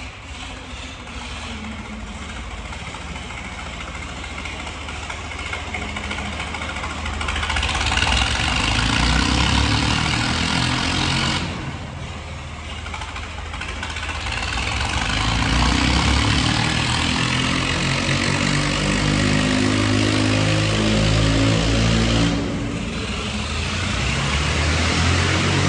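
Swaraj 855 tractor diesel engines running hard. The sound gets louder about a third of the way in, drops back briefly twice and picks up again each time.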